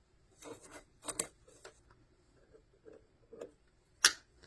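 Small clicks, taps and brief scrapes of hands working on a sewing machine while cleaning lint out of it, with the sharpest click about four seconds in.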